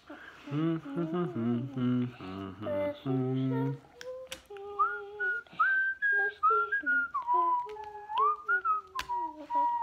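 A man humming a short low tune, then from about four seconds in whistling a melody note by note, with a couple of small clicks.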